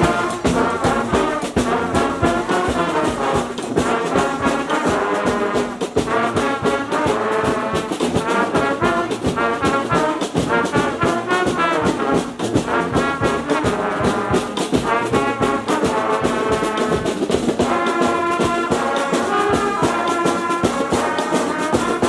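Street brass band playing live: massed horns over a steady beat.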